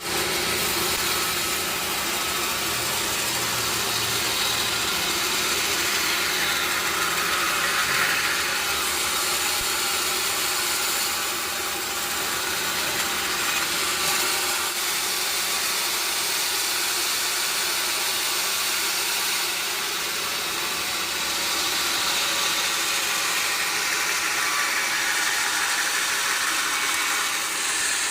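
Sawmill machinery running steadily: a wide saw noise with a constant hum underneath and slight rises and falls in pitch as it works through acacia wood.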